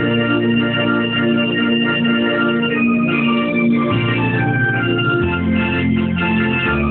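Casio electronic keyboard playing a march, with held bass notes and chords changing about every second under a melody line.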